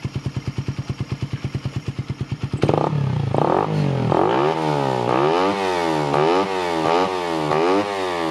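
Suzuki Raider 150 Fi's single-cylinder four-stroke engine idling with a fast, even beat, then from about two and a half seconds in revved up and down in quick repeated throttle blips. The engine is running on a freshly installed aftermarket fuel pressure regulator set to about 4 bar, and the blips test its throttle response.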